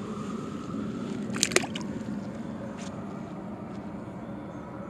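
A bass released back into the pond water, with one short splash about a second and a half in. A steady low hum runs underneath.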